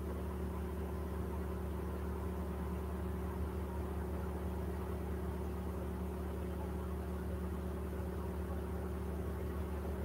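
A steady low hum, like a small motor or appliance running, holding the same pitch and level throughout.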